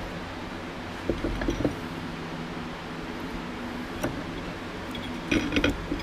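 Light metallic clinks and knocks from handling a tractor DC generator's armature and housing: a few small taps about a second in, one at four seconds, and a quick cluster of clinks near the end.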